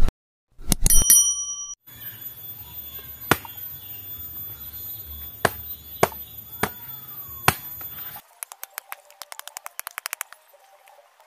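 Subscribe-button animation: a click and a bell chime. Then a stone knocking on a dry coconut, hard single strikes about a second apart, followed by a quick run of lighter taps that fades out.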